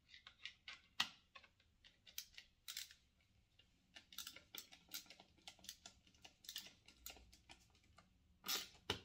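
Screwdriver tightening the screw that holds a Magpul cheek riser onto a polymer rifle-style stock: a faint run of small, irregular clicks, a few a second, with a slightly longer scrape near the end.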